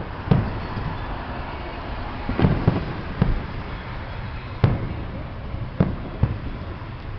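Fireworks going off: about seven sharp bangs at irregular intervals, some close together, over a steady hiss.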